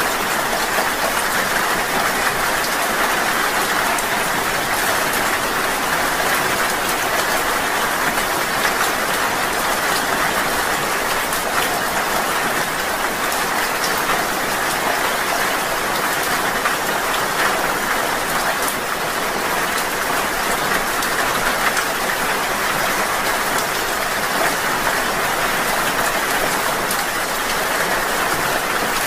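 Steady rain falling: an even hiss with a fine patter of individual drops, unchanging throughout.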